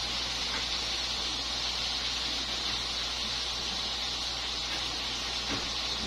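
Steady hiss with a constant low hum underneath, unchanging throughout, with no distinct events.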